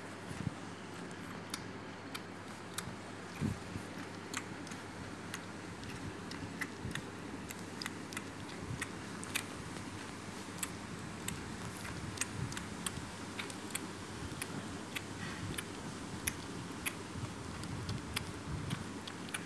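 A 32-day-old Lhasa apso puppy suckling from a feeding bottle: irregular clicking and smacking from its mouth on the nipple, one or two clicks a second, over a steady low hiss.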